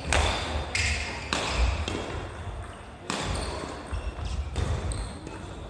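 Badminton rally: sharp racket hits on a shuttlecock every second or two, with shoes squeaking and feet thudding on a wooden sports-hall floor, echoing in the large hall.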